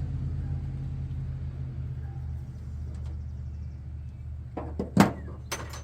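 A steady low mechanical hum, fading slowly, with a few sharp clicks near the end, the loudest about five seconds in, as hand tools work on a jumper wire.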